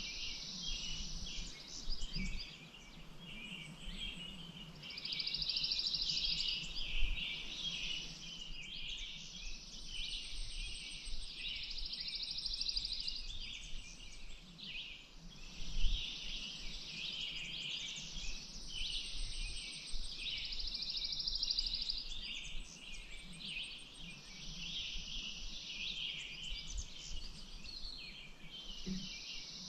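Birds singing: many short high chirps, with a high trill of two to three seconds repeating every few seconds.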